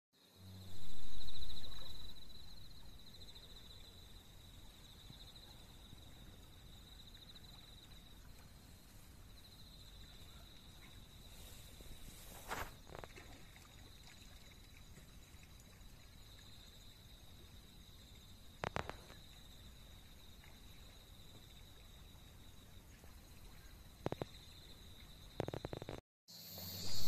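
Insects trilling steadily in one continuous high note by the lakeside. A loud low rumble comes about a second in and fades quickly, and a few faint clicks follow later.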